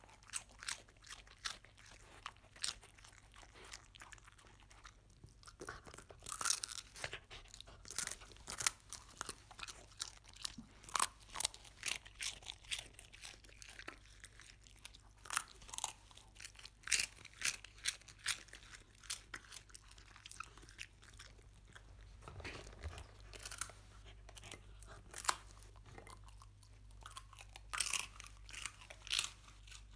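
A dog chewing strawberry-flavoured puffed rice sticks, with crisp crunches coming in quick irregular runs.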